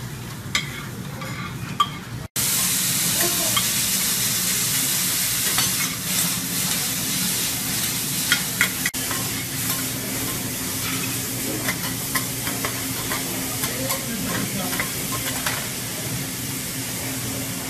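Food sizzling on a hot teppanyaki griddle, a loud steady hiss that starts suddenly about two seconds in. Metal spatulas click and scrape on the cooking plate throughout.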